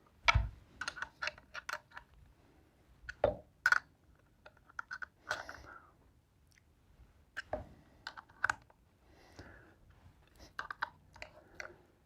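Irregular clicks, taps and a few sharper knocks of a small wrench and hardware being handled while bolts are tightened on a plexiglass router plate.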